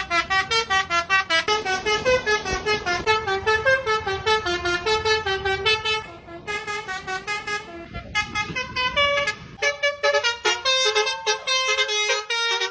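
Basuri telolet musical bus horn playing a fast tune of short horn notes, several a second. The tune breaks off about six seconds in and comes back quieter, then loud again about eight seconds in.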